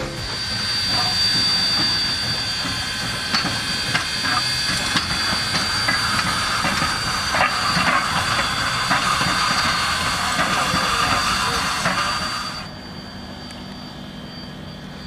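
Canadian National 2-8-0 steam locomotive No. 2141 rolling by, with steady hissing steam and scattered clicks from the running gear and rails. The hiss cuts off suddenly about twelve and a half seconds in, leaving a quieter low rumble.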